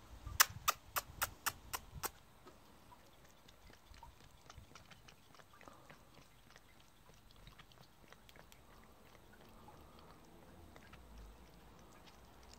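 A metal spoon tapped sharply seven times in quick succession, about four taps a second. Then a red fox licks and nibbles food off the spoon, with faint small clicks of teeth on the metal and soft chewing.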